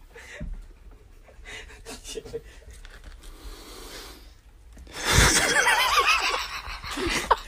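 Faint breathing and stifled snickers, then loud laughter breaks out about five seconds in.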